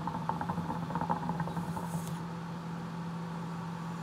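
Hookah water bubbling in short, irregular gurgles for about two seconds as smoke is drawn through the hose, then dying away, over a steady low hum.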